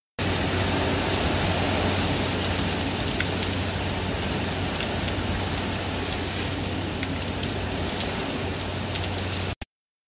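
Heavy typhoon rain, a steady rushing hiss with a few faint drop ticks.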